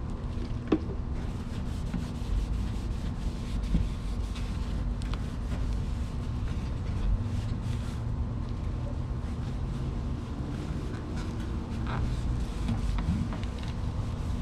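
Steady low rumble of wind buffeting the microphone, with faint scattered clicks from handling.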